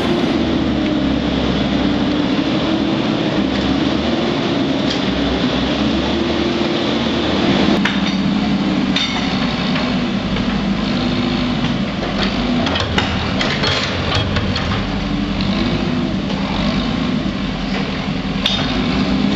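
Bobcat skid-steer loader's engine running under load, its pitch rising and falling as the loader works, with several sharp knocks.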